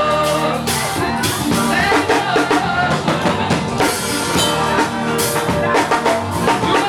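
Afrobeats music with a steady drum-kit beat and rimshots.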